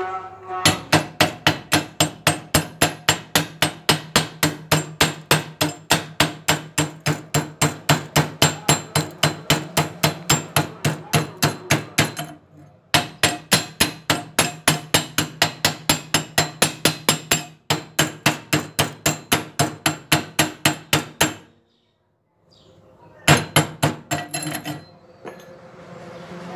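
Rapid, evenly spaced hammer strikes on steel, several a second, with the metal ringing under the blows: a chipping hammer knocking slag off a 6013 stick-weld bead on angle iron. The strikes pause briefly twice, stop, and come back for a short burst near the end.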